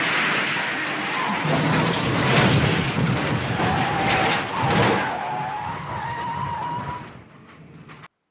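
A car engine running hard with tyres skidding and squealing, broken by several sharp bangs. The sound fades and then cuts off abruptly near the end.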